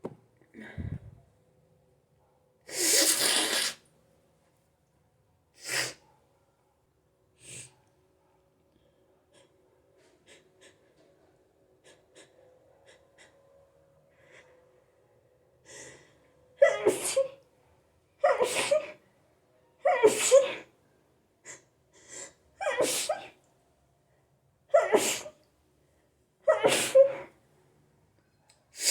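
A person sneezing in a hay-fever sneezing fit. There are a few scattered sneezes in the first several seconds, then a quiet spell, then from about halfway through a run of about seven loud sneezes roughly two seconds apart, with short gasping inhales between them.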